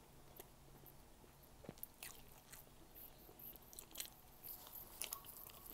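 Faint chewing of fried squid, with scattered short crunchy clicks.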